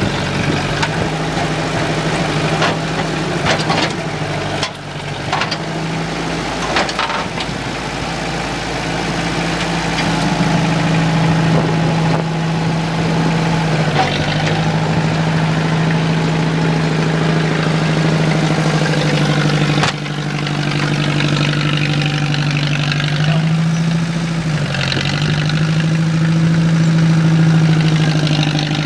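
John Deere farm tractor engine running steadily, its speed dipping briefly twice, about halfway through and near the end. Several knocks sound between about three and seven seconds in.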